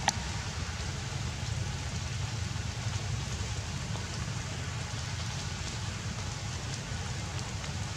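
Steady hiss of falling rain over a low rumble, with one sharp click just after the start.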